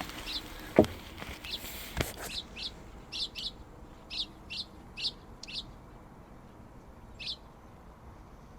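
A small songbird giving short, high chirps, about a dozen spaced through several seconds. Two sharp knocks come in the first two seconds, with a rustling hiss that stops just after the second knock.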